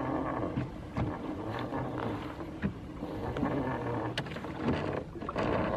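Anchor rope paying out over the side of a small boat, with scattered knocks and rubbing. Under it runs a steady low motor hum.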